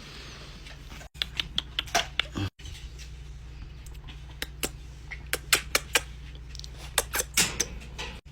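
Irregular short clicks and taps, typical of puppies' claws on a hard floor, over a low steady hum, broken by a few brief silent gaps.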